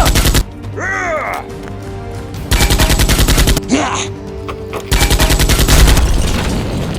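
Bursts of rapid automatic gunfire, about a second each: one ends just after the start, then two more follow about two and a half and five seconds in. They play over steady background music, with short rising-and-falling sounds between the bursts.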